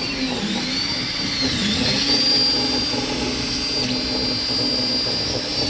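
Tevo Tornado 3D printer's stepper motors whining as the axes move. The pitch glides up and down in repeated arcs as each move speeds up and slows down, then holds a steady tone for a few seconds from about two seconds in.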